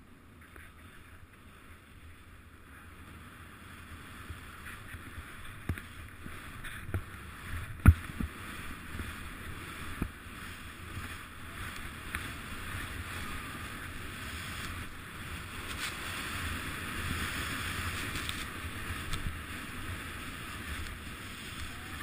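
Skis hissing through deep powder snow, with wind rumbling on the camera microphone. The sound grows louder as the run goes on. A sharp knock comes about eight seconds in, and a few smaller clicks follow.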